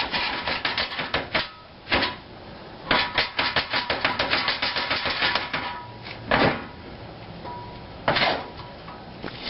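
Rapid metallic clicking in two runs of about eight clicks a second, then a few single knocks, as the Chevy Colorado's front wheel hub is wiggled and forced off the axle.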